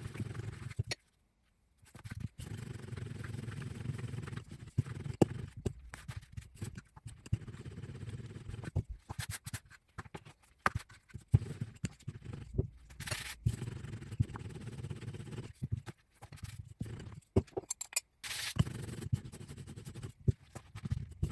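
Wooden rolling pin rolling back and forth over soft dough on a silicone mat: a low rumble broken by small knocks and taps, with pauses while the dough is lifted and turned by hand.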